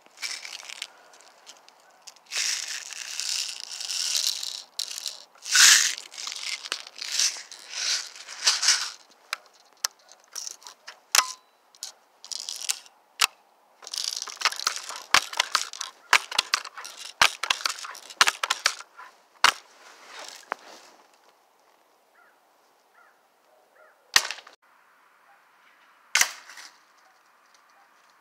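BB air rifle being handled and reloaded: a long run of small metallic clicks and rattles mixed with rustling. One loud sharp snap comes about six seconds in, and two more single snaps come near the end.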